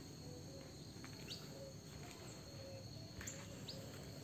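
Faint garden ambience: a steady high insect trill, with a few short rising bird chirps and soft low notes repeating under it.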